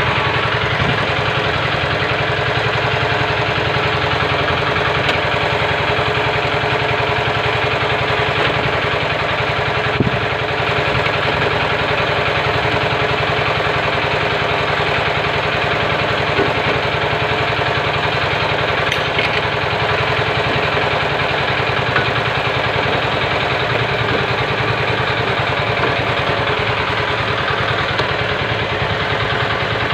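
Isuzu Fuego's diesel engine idling steadily, with one short knock about a third of the way through.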